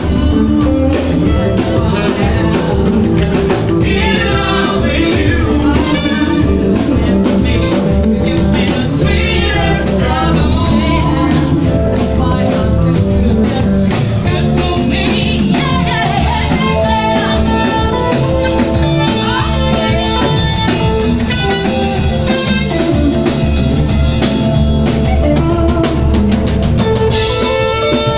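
A live band playing upbeat dance music with drums, electric guitar and singing; the vocals stand out in the first half and the guitar comes forward near the end.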